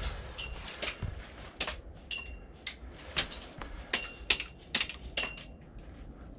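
About a dozen sharp clacks at uneven intervals from an airsoft skirmish: gas-blowback shots and BBs striking hard cover. Several clacks leave a brief high ring, and they stop near the end.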